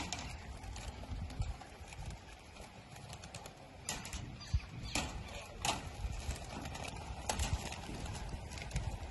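Racing pigeons taking off from transport trucks: wing flutter with scattered sharp clacks, over a low wind rumble on the microphone.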